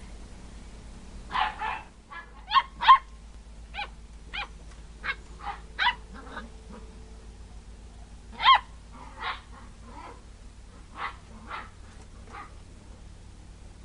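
Basset hound puppy barking and yipping: about fifteen short, sharp barks, irregularly spaced, starting about a second and a half in, the loudest a couple of single barks around the third and eighth seconds.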